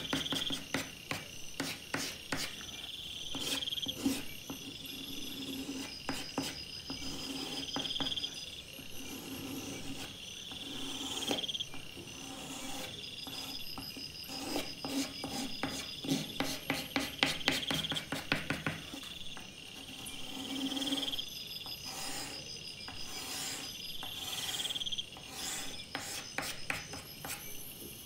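Soft pastel stick scratching and rasping on sandpaper in quick, repeated back-and-forth strokes, with scratchy streaks recurring every couple of seconds.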